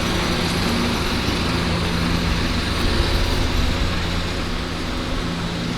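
An engine running steadily with a low hum while it powers the cable pull of an old water service line, which is pulling hard against buildup on the pipe.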